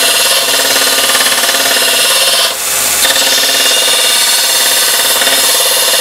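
Electric grinder grinding the edge of a steel plate: a steady grinding hiss with a whine, easing briefly about two and a half seconds in as the pressure comes off.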